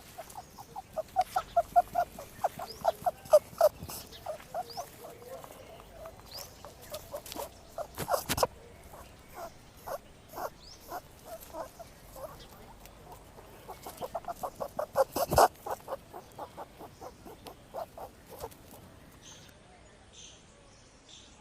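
An animal calling in fast runs of short, chattering pulses, several a second. There are two long runs, with a few sharp clicks between them.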